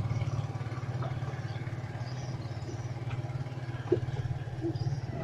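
A small engine running steadily, a low even drone with a fast throb, and a faint click about four seconds in.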